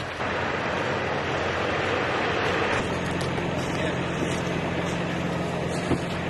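Steady vehicle engine running. About three seconds in, the sound changes from a broad hiss to a steady low engine hum, a truck engine running the aerial lift, with a few light clicks.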